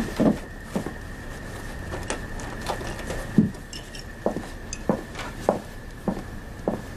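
A series of short, soft knocks and thuds at an uneven pace, roughly two a second, over a faint steady hum.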